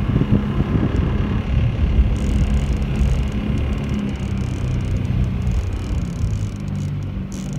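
Boat's motor running steadily, with wind buffeting the microphone and water splashing against the hull; the motor's pitch shifts a little near the end.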